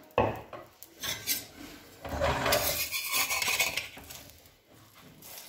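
A metal spatula scraping under an egg paratha on a flat tawa griddle to loosen it for flipping, with a sharp metal clank just after the start.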